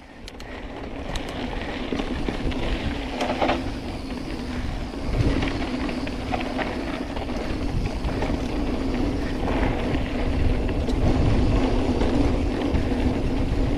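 Mountain bike ridden over a rough dirt trail: a continuous rumble of the tyres and rattling of the bike, with scattered clicks, building over the first couple of seconds.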